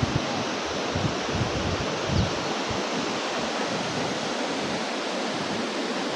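Steady rushing noise with a few low buffets of wind on the microphone in the first couple of seconds.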